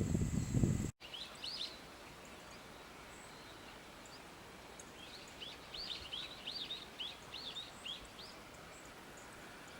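Wild bird calling: a couple of high chirps, then a quick run of about a dozen short high chirps a few seconds later. Before that, a loud rushing noise cuts off abruptly about a second in.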